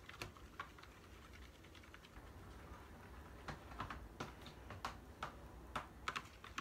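Black plastic fork stirring a runny slime mixture in a plastic container, giving faint, irregular clicks and ticks against the plastic and the wet mixture, more frequent in the second half.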